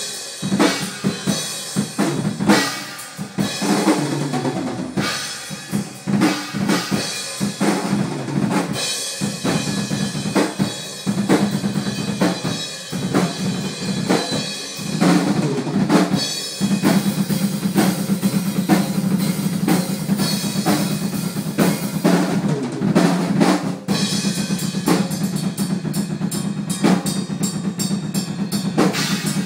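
Rock drumming on a drum kit, a dense run of bass drum and snare hits. From about halfway through, a steady low ring sits under the strokes.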